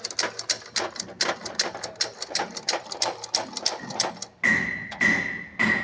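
Rapid run of sharp metallic clicks, about six or seven a second, then from about four and a half seconds in a steady high whine with pulsing noise, from tools at work during a pickup gearbox repair.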